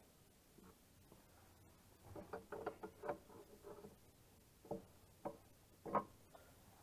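A 15/16 ratcheting wrench clicking as it is worked on a bolt: a quick run of small metallic clicks about two seconds in, then three single clicks.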